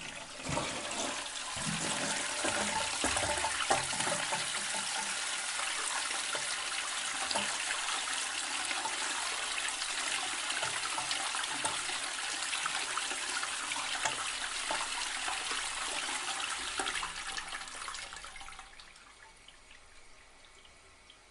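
Toilet flushing: the water starts abruptly and rushes steadily for about eighteen seconds, then dies away to a faint hiss near the end.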